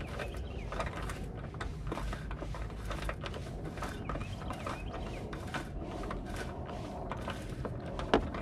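Small clicks and scrapes of a bolt being turned in by hand at a car's headlight mounting, with one sharper click about eight seconds in, over a steady low outdoor rumble.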